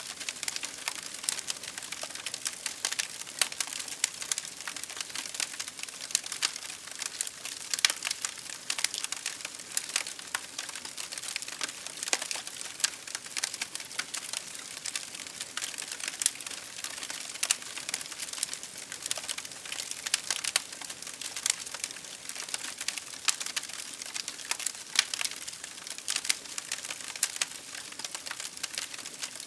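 Campfire of burning firewood crackling: a constant, irregular stream of sharp pops and snaps over a soft hiss.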